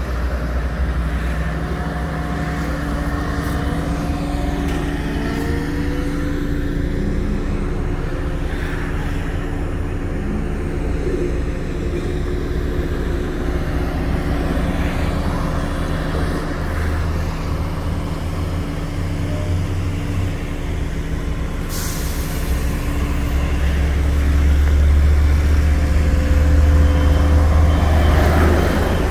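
Heavy truck engine running steadily with a low hum and rumble that swells louder near the end. A high hiss comes in about three-quarters of the way through and continues.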